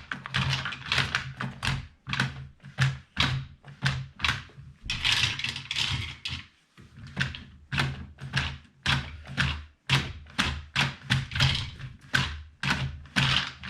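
Mag Pump 9mm magazine loader being worked to load a SIG P226 magazine: a rapid run of sharp clacks, about two to three a second, as cartridges are pumped in one by one, with a longer rattle of loose rounds about five seconds in.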